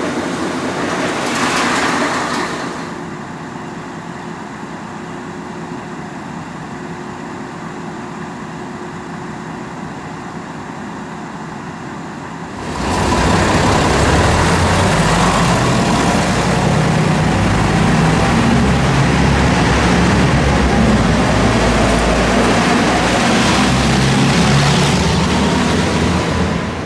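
VT 98 Uerdingen railbus running on its underfloor diesel engines. About halfway through the sound changes abruptly to a louder, deeper engine note, with a faint whine rising in pitch as the railbus picks up speed.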